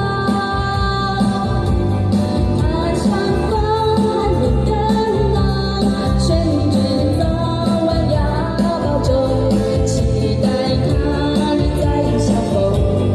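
Live band music: a lead singer over keyboard, guitar and violin.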